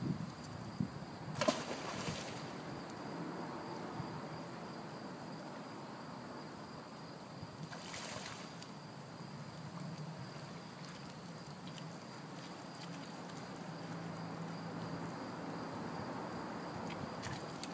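Water sloshing and splashing as a dog wades and swims through a shallow river, over the low, steady rush of the current. Two sharper splashes stand out, one about a second and a half in and one about eight seconds in.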